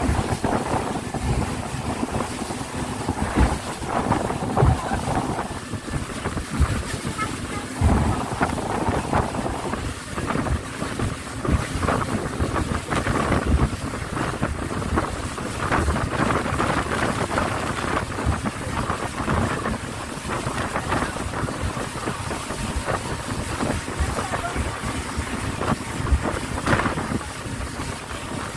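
Speedboat under way: wind buffeting the microphone over the steady noise of the engine and water, with irregular low thumps as the boat runs over the waves.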